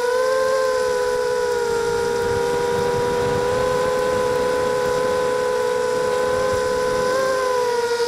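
A small FPV racing quadcopter's electric motors and propellers whining at a nearly steady pitch, heard from the quad's own onboard camera. The pitch wavers slightly near the end.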